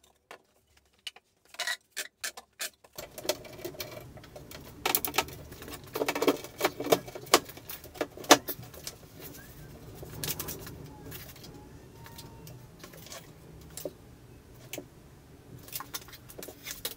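Handling noises: scattered knocks, clicks and light clatter as a gas hob is set into its cutout in the worktop. A faint low hum comes in suddenly about three seconds in.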